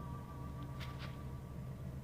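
Faint steady low hum and hiss of the recording after the song's final chord has stopped, with a few soft clicks about a second in.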